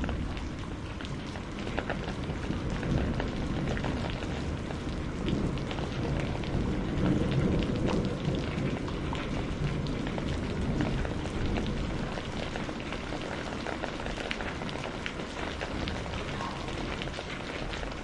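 Steady rain with scattered drop ticks over a low rolling rumble of thunder, which swells about midway and eases toward the end.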